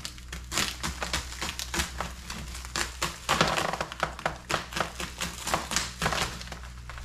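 Plastic stretch wrap and cardboard packaging around new wheels being pulled and torn open by hand: irregular crinkling, rustling and tapping, over a steady low hum.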